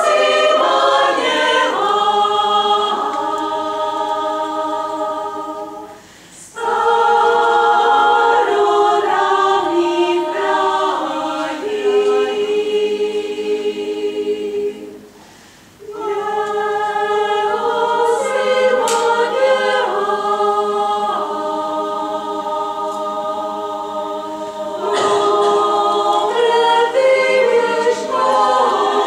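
Choir singing a Czech folk song in harmony, with two brief breaths between phrases, about six and fifteen seconds in.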